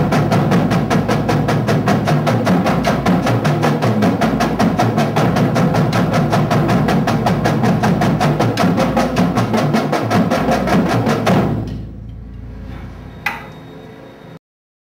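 Marching drumline of snare drums, tenor drums and bass drums playing a warm-up exercise together, a steady rapid stream of sticked strokes. The playing stops about three-quarters of the way in, leaving a short ring and room noise with one sharp tap, and then the sound cuts off.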